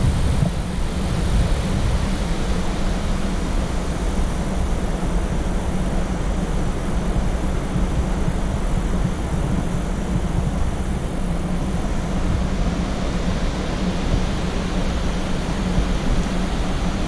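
Whitewater rapids on the Henrys Fork rushing steadily, an even wash of noise with a deep low rumble underneath.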